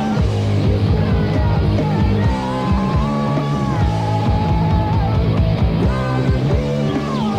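Punk rock band playing, from a lo-fi cassette demo: a dense full-band mix with drums keeping a steady beat and long held notes that bend up and down over the top.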